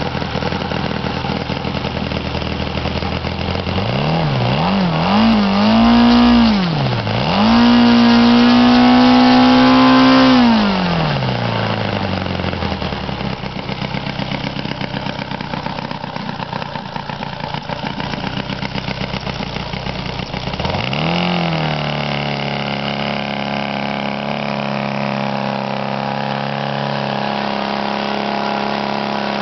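Saito FA-300T-TDP opposed-twin four-stroke model airplane engine running on a test stand. It idles, is revved up and down a few times about four seconds in, is held at high revs for about three seconds, then throttles back down to idle. Past the middle it is blipped once more and settles at a steady mid-throttle speed.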